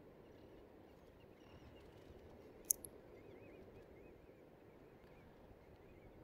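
Faint beach ambience: a low steady rush of breeze and surf, with distant birds calling in short wavy notes. A single sharp click comes about two and a half seconds in.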